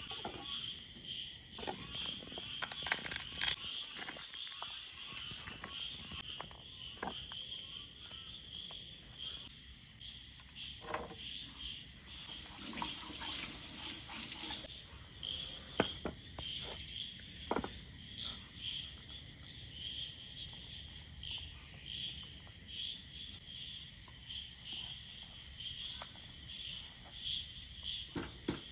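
Insects chirping steadily in a fast, even, high-pitched pulse, with a few sharp clicks and knocks. A brief hiss lasts about two seconds near the middle.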